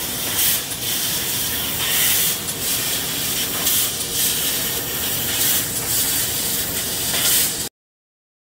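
Laser cutter cutting aluminum sheet: a steady hiss from the cutting head, swelling in brief brighter surges about once a second as it cuts. It cuts off suddenly near the end.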